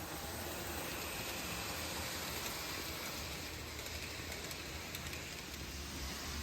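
N scale model train running on the layout's track: a steady whir of the small motor and wheels, with a few faint clicks.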